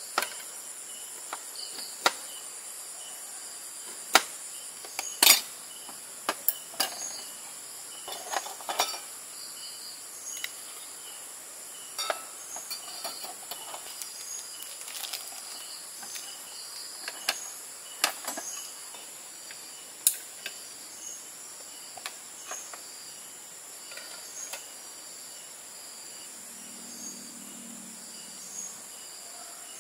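Insects chirping steadily: a continuous high buzz with short, evenly repeated chirps, broken by irregular sharp clicks and taps. The loudest taps come about four to five seconds in and again near eighteen seconds.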